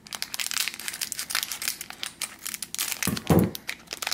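Plastic packaging of a mystery-pack toy crinkling and tearing as it is unwrapped by hand, with a dull thump a little after three seconds in.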